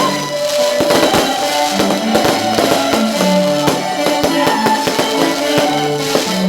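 Loud music with a drum beat and a melody of held notes.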